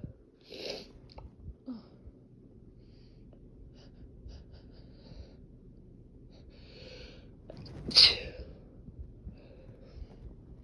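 A person's sneezing fit: small sniffs and breaths, a drawn-in breath a little before eight seconds, then one loud sneeze about eight seconds in.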